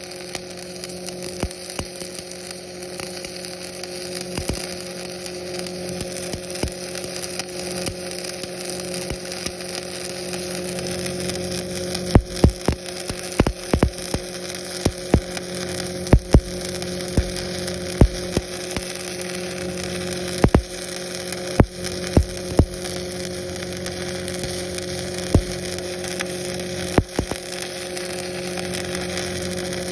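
Stick-welding arc on structural steel with a 7018 electrode: a steady crackling sizzle broken by irregular sharp pops, which come more often in the second half. The engine-driven welding machine hums steadily underneath.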